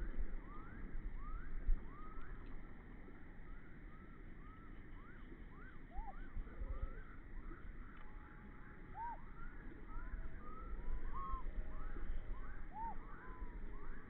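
Many birds calling together: a steady stream of short rising and arching chirps, several a second, over a low rumble.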